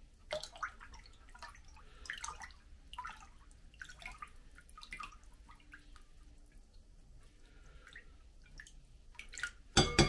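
Liquid jelly mixture being stirred in a bowl: irregular light clinks and small splashes of liquid, with a sharp knock just before the end.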